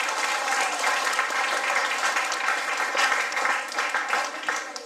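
An audience of schoolchildren clapping in applause, a dense crackle of many hands that dies down near the end.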